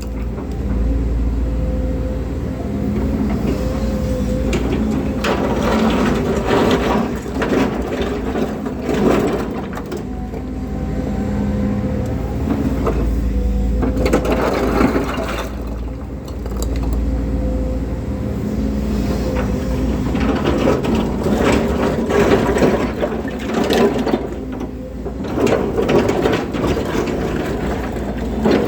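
Volvo crawler excavator's diesel engine running under hydraulic load, its pitch rising and falling as the boom, stick and bucket are worked. Irregular knocks and crunches of the bucket working soil and stone come through it.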